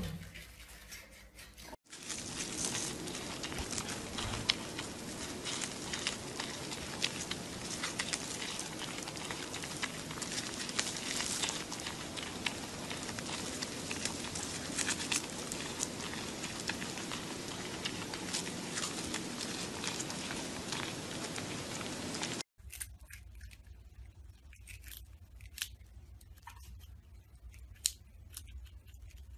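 A brief sharp sound right at the start, then a red panda chewing bamboo leaves: dense crunching and crackling rustle of the leaves for most of the clip. About three quarters of the way through it cuts to quieter, scattered crisp crunches of prairie dogs nibbling food.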